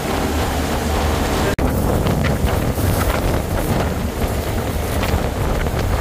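Wind rumbling on the microphone over the steady rush of a boat moving through water. The sound cuts out for an instant about a second and a half in, then carries on.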